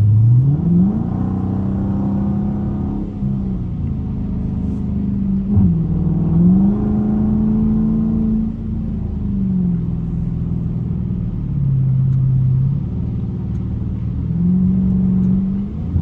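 Dodge Challenger R/T's 5.7-litre HEMI V8 heard from inside the cabin while driving at highway speed, over a steady low road rumble. The engine note climbs in the first second, holds, dips and climbs back about five to six seconds in, falls lower around twelve seconds in, then climbs again near the end.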